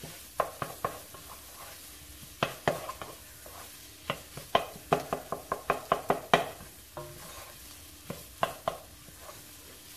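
Wooden spoon stirring and scraping sausage and vegetables in a pan, over a steady sizzle of frying. The spoon strokes come in quick runs, busiest from about two and a half to six and a half seconds in.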